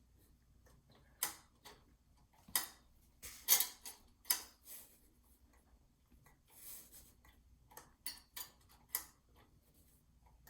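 Irregular sharp clicks and light knocks from parts being handled on the new engine, about a dozen in all, with a brief soft rustle a little past the middle.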